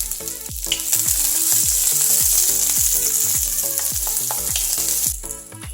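Small onion and garlic cloves frying in hot oil in a kadhai: a loud, steady sizzling hiss that swells about half a second in and drops away near the end. Background music with a steady beat runs underneath.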